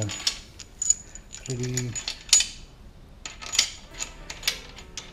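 Steel bearing-cap bolts clinking against each other and the engine block as they are handled and set into the main bearing caps: a series of sharp metallic clicks at irregular intervals, the loudest about halfway through.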